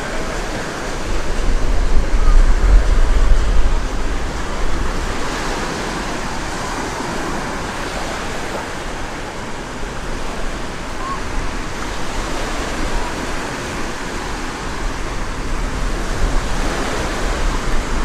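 Small Black Sea waves washing onto a sandy beach, with a murmur of distant beachgoers' voices. Gusts of wind buffet the microphone as a low rumble, loudest about two to four seconds in and again near the end.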